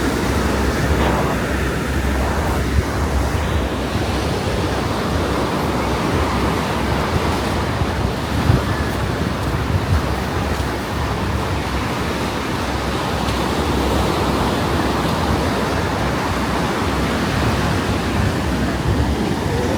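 Ocean surf washing steadily on the beach, with wind rumbling on the microphone and a few brief louder peaks.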